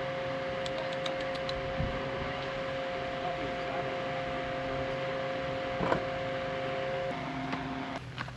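A machine's steady whirring hum: a constant hiss with two steady whining tones over it. The lower tone stops about seven seconds in and the higher one about a second later, and the sound then drops.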